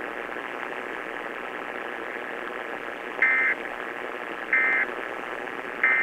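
Three short bursts of Emergency Alert System end-of-message data tones, each about a third of a second and evenly spaced about a second and a third apart, over a steady static hiss. They come through the small speaker of an AM radio, marking the close of the EAS test.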